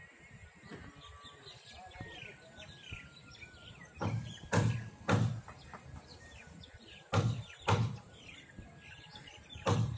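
Birds chirping and calling throughout, broken by several loud sharp knocks that come in quick twos and threes about half a second apart, starting about four seconds in.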